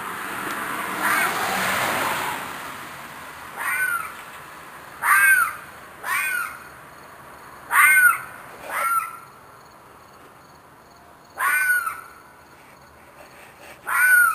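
An unidentified animal's screeching cries at night: seven short calls, each rising then falling in pitch, at uneven spacing. This is the sort of distress-like screaming that went on for hours, and which the recordist thinks may be a fox or a coyote. A brief rushing noise comes before the first call.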